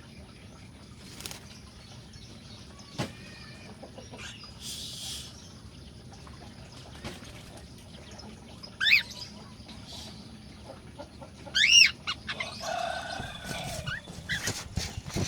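Cockatiels calling: two loud, short rising-and-falling whistled calls about nine and twelve seconds in, then a busier spell of calls near the end, with scattered clicks and a brief rustle from the cage.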